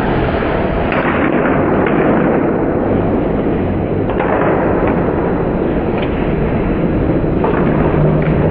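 Ice hockey play heard through a camcorder microphone: a loud, steady low noise of the rink, with a few short clacks of sticks on the puck and ice.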